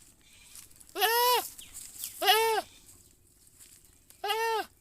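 Goat bleating: three short, high calls, each rising slightly and then falling in pitch.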